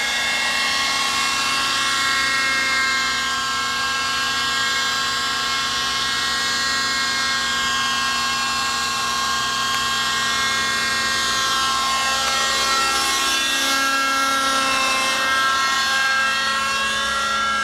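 Thunder Tiger Raptor 50 radio-controlled helicopter in flight: its two-stroke nitro glow engine and rotor give a steady, high-pitched whine whose pitch drifts slightly up and down as it manoeuvres.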